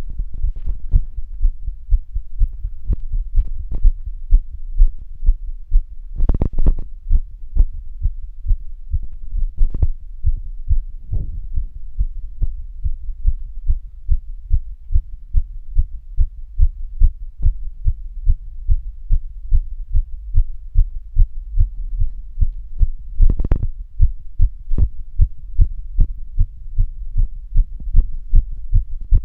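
A recorded human heartbeat: a steady, even run of low thudding beats. A few louder thumps break in about 6, 10 and 23 seconds in.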